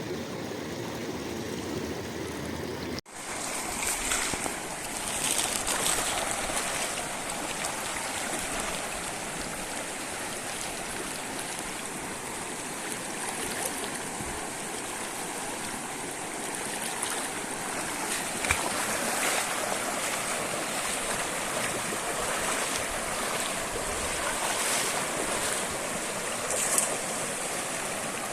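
Steady rush of flowing river water, an even hiss with no pitch to it, which changes abruptly about three seconds in to a slightly brighter, louder rush.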